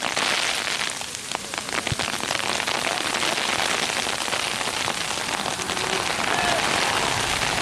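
A shower of icy precipitation pattering steadily: a dense hiss made of many small ticks, like pellets striking nearby surfaces.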